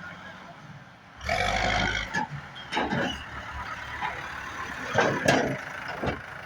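Heavy construction vehicle noise: a steady low rumble, then a loud burst of engine noise about a second in, followed by several short sharp knocks.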